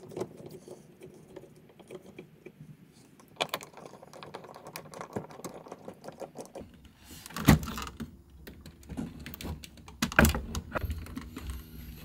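Screwdriver backing out the screws of a wood-framed wall control panel: a run of small clicks and scrapes. Two louder knocks past the middle as the panel is worked loose from the wall.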